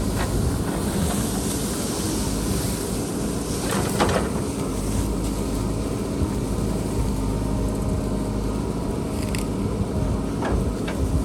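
JCB backhoe loader's diesel engine running steadily while it works, with a sharp knock about four seconds in and a few fainter knocks near the end.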